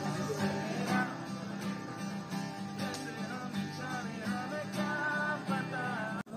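Live music: a strummed acoustic guitar with a melody line over it, broken by a very short gap just before the end.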